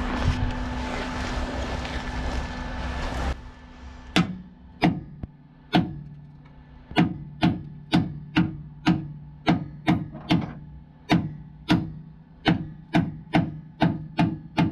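A hammer striking the car's steel wheel arch panel to shape it, a run of sharp metallic blows at about two a second, each with a short ring. Before the blows start, a steady hiss with a low hum cuts off about three seconds in.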